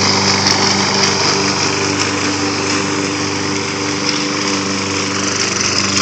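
Gasoline lawn mower engine on a remote-controlled lawnbot running steadily as the mower drives itself across the lawn cutting grass.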